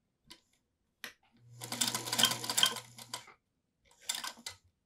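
Singer Featherweight 221 sewing machine stitching in reverse for about two seconds: the motor's steady hum under a rapid clatter of needle and mechanism. Two light clicks come before it, and a shorter burst of stitching near the end.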